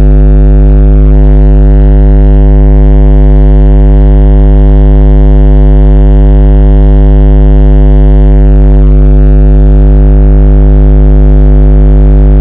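Audiopipe TXX BF-15 15-inch subwoofers playing a steady 50 Hz test tone at high power. It is loud enough to drive the recording to its limit and sounds distorted.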